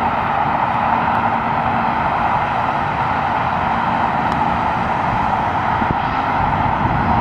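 Steady rushing noise of distant engines, with a low hum that fades about two seconds in. About four seconds in comes the faint click of a putter striking a golf ball.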